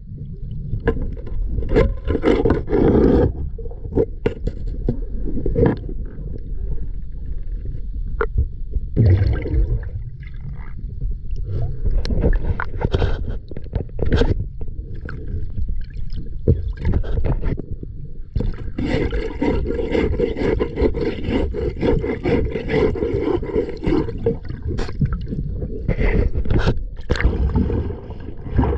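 Muffled underwater noise from a submerged camera: a steady low rumble of water, broken by knocks and scrapes and by stretches of higher hissing and bubbling as it moves along the hull.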